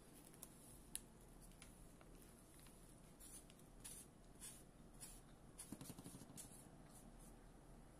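Near silence, with faint scattered clicks and light rustles of hands handling small objects.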